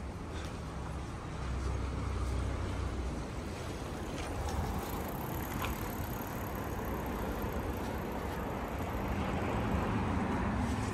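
Road traffic passing on a street, a steady rumble.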